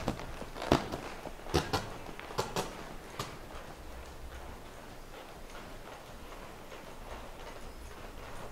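A horse trotting on arena dirt: a handful of sharp, uneven clicks of hoofbeats in the first three seconds or so, then only a faint low hum.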